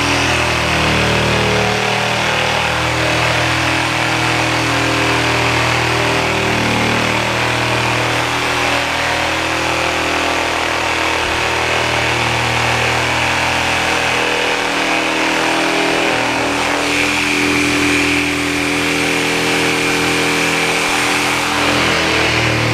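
Reciprocating saw (Sawzall) running continuously, its blade cutting through the cured fiberglass overhang along the edge of a foam-core deck panel. The pitch shifts a little partway through as the saw works along the cut.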